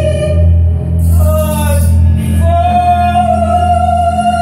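A woman singing into a microphone over a steady low electronic drone, with short broken phrases at first and then one long held note from a little past halfway.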